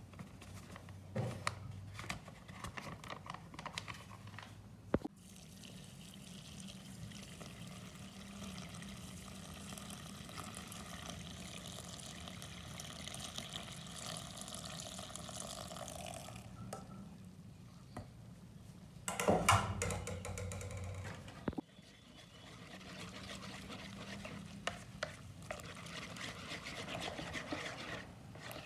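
Liquid being poured and stirred, with a steady pouring wash through the middle, scattered light clicks of a utensil near the start, and a louder clatter about two-thirds of the way through.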